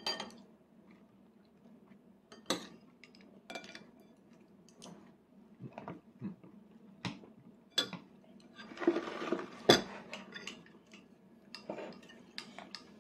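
A child's metal spoon clinking and scraping against a plastic divided plate as a toddler scoops rice: scattered light taps, a longer scrape about two-thirds of the way in, then the loudest knock.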